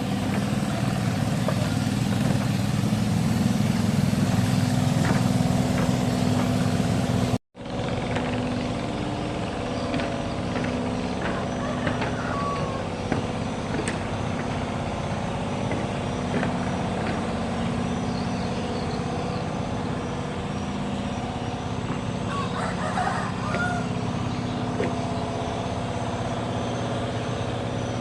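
A motor engine running steadily at constant speed, broken by a sudden cut to silence about seven and a half seconds in. A few short chirps sound over it near the end.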